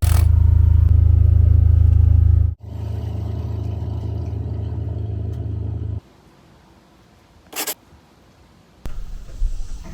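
Onan QD3200 diesel generator running with a steady, loud low hum. Its level drops abruptly a couple of seconds in, and the sound stops about six seconds in. A short hiss follows near the end.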